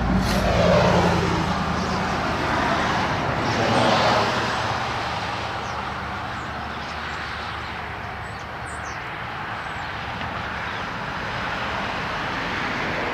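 A Dodge Charger SRT8's 6.4-litre HEMI V8 running, swelling in level about a second in and again about four seconds in, then settling to a steady rumble.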